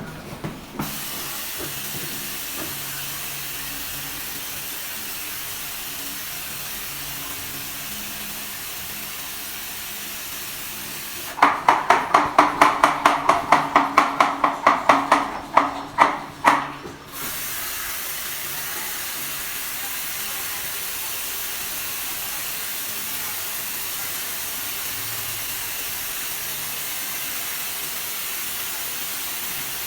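A steady hiss. About twelve seconds in it gives way to some five seconds of fast, rhythmic strokes, three or four a second, much louder than the hiss.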